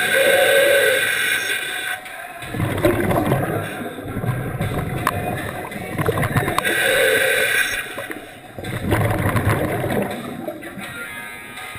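Scuba diver breathing through an open-circuit regulator underwater: a hissing inhale, then a longer gurgle of exhaled bubbles, twice.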